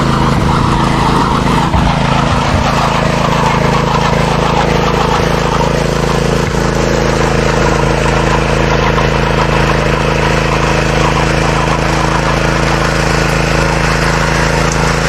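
Gas-engine power trowel running at a steady speed while finishing a fresh concrete slab.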